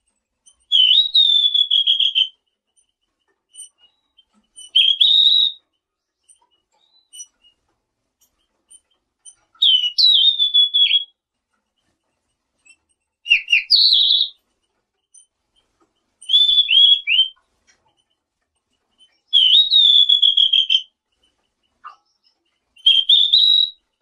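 Songbird known in Indonesia as selendang biru singing: seven short, high, clear whistled phrases a few seconds apart, each a note that rises and then slides down, some broken into quick slurred notes.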